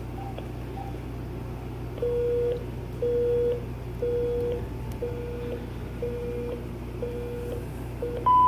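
Telephone line tones through the GE 26990GE1-D answering machine's speaker after the caller hangs up: a low beep of about half a second, repeating once a second seven times, typical of the busy or disconnect tone the machine hears when the call ends. A single higher beep follows near the end.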